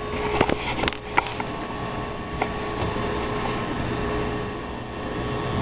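Steady fan hum with a few light clicks and taps, most of them in the first second.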